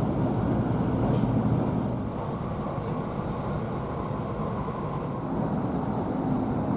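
Tokaido Shinkansen train running, a steady low rumble heard inside the passenger cabin, easing a little about two seconds in.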